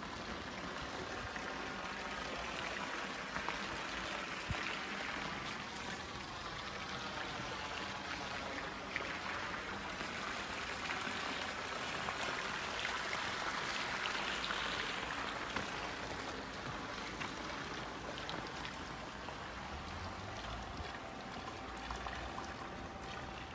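Pool water spilling steadily over the overflow edge into the channel below, a continuous splashing trickle that swells a little about halfway through.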